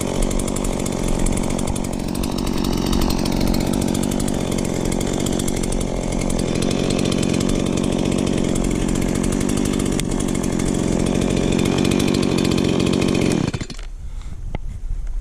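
Gas chainsaw running steadily, then shut off abruptly near the end.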